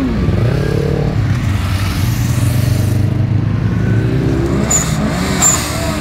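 Vehicle engines in slow passing traffic. A motorcycle engine drops in pitch as it goes by at the start, then a car engine runs low and steady and revs up a little toward the end. Two short high chirps come near the end.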